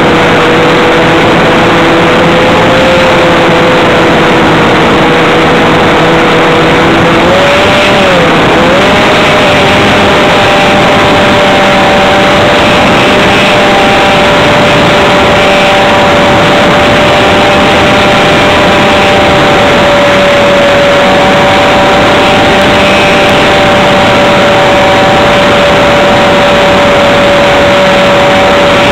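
Radio-controlled model airplane's motor heard from a camera on board, running at a steady pitch under heavy wind rush. About eight seconds in, the pitch dips briefly, then settles slightly higher.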